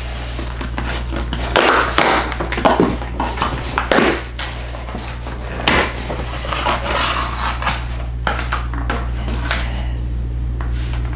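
A package being opened by hand: irregular rustling, crinkling and tearing of packaging, with a few sharper knocks and crackles as it is handled.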